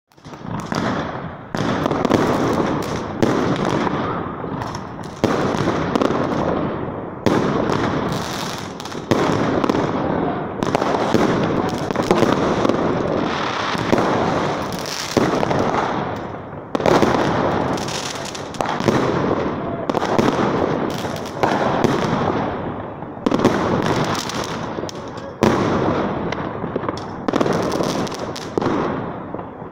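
Aerial fireworks going off in quick succession, loud, a sharp bang every second or two, each followed by an echo that fades away before the next.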